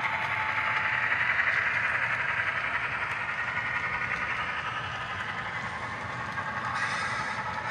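HO scale model of a CSX SD40-3 diesel locomotive running past on a model railroad layout: a steady mechanical running sound of the model train on the track.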